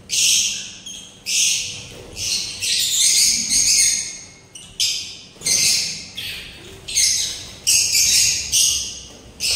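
Birds chirping: shrill, harsh calls come one after another about once a second, each sharp at the start and fading away.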